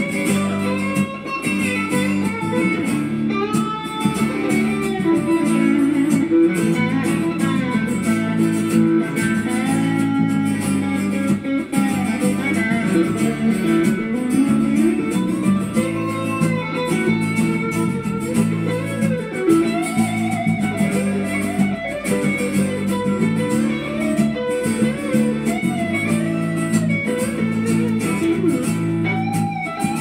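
A live country-rock band playing an instrumental passage. A lead guitar plays bending, sliding notes over held bass notes and rhythm guitar.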